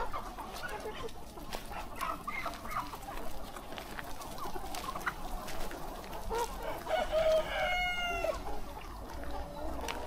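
A large flock of free-range chickens clucking. A rooster crows once, starting about seven seconds in and lasting about a second and a half.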